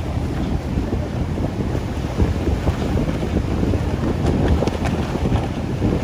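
Strong gusty wind buffeting the microphone: a loud, uneven low rumble.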